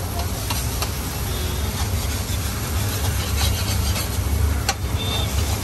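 Metal spatula scraping and turning egg bhurji across a large flat tawa while it fries, with an occasional sharp metal clink of spatula on griddle. A steady low rumble runs underneath.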